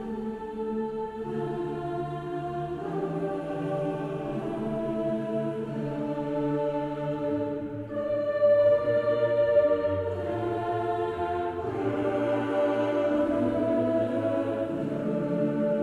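Choral music: a choir singing slow, sustained chords that change every second or two.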